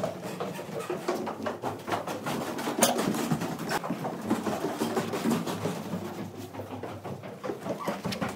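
Crowd hubbub: many people talking at once, mixed with footsteps and scattered knocks and clatter. There is one sharp, louder click about three seconds in.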